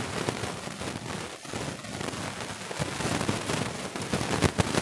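Marker writing on a whiteboard: a dense, scratchy crackle of many small strokes and taps.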